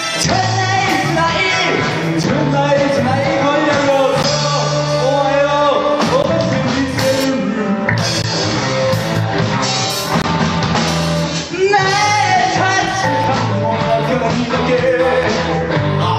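Live rock band playing loudly: a man singing lead over electric guitars, a Pearl drum kit and keyboard, with a brief drop in the sound about two-thirds of the way through.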